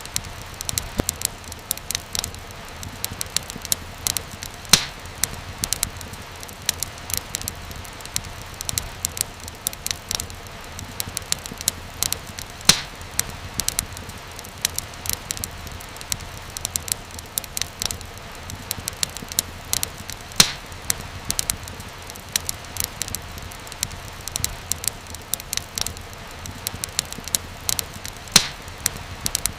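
Wood fire crackling, with many small snaps and pops over a steady low hiss and a few louder pops standing out.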